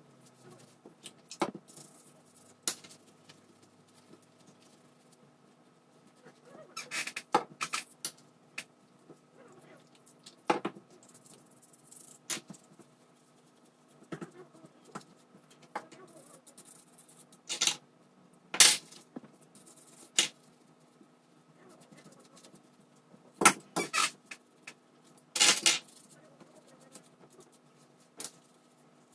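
Paper tissue rubbing and a toothbrush scrubbing a circuit board, in scattered short scrapes and squeaks, a few louder ones in the second half. This is the board being cleaned after soldering repairs.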